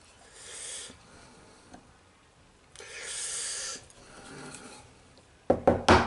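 Hammer tapping a wood chisel in quick, even blows, starting near the end, to cut a recess for a lock plate in a wooden door frame. Before that, two soft hissing sounds.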